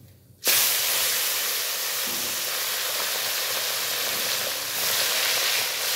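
Pieces of Catla fish frying in hot mustard oil in a kadhai: a steady, loud sizzle that starts suddenly about half a second in.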